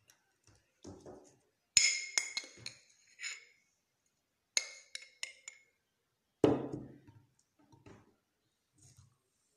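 A spoon clinking against a glass jar while scooping baking soda: a cluster of ringing clinks about two seconds in and another about four and a half seconds in. Then comes a single dull thump.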